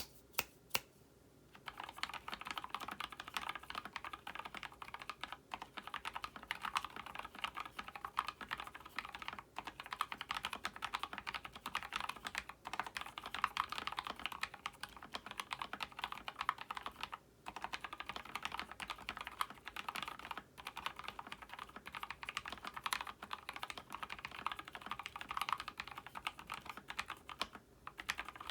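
Typing on a Gingham 60% mechanical keyboard with lubed and filmed Gateron Yellow linear switches, mounted plateless, with OEM-profile PBT keycaps in a 3D-printed case. A few single keystrokes, then fast continuous typing from about two seconds in, broken by a few short pauses.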